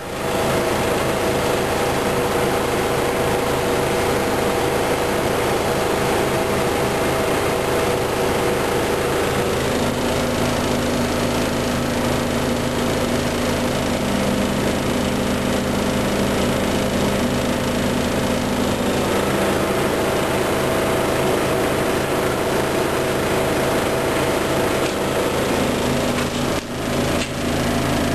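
Washing machine running: a steady motor hum and whine whose tones step to new pitches several times, with a brief dip near the end.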